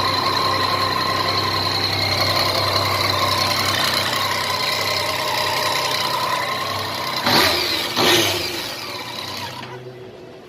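Yamaha MT-09's three-cylinder engine idling steadily, then blipped twice in quick succession about seven and eight seconds in, before the sound dies away near the end.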